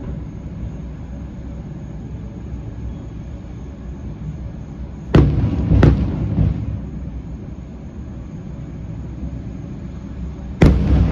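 Fireworks shells bursting: two booming bangs about half a second apart midway, and another bang near the end, with a low rumble in between.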